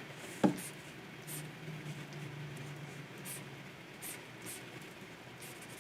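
Short stylus strokes scratching across a Wacom pen tablet's surface, several separate strokes. A single sharp tap or knock about half a second in is the loudest sound.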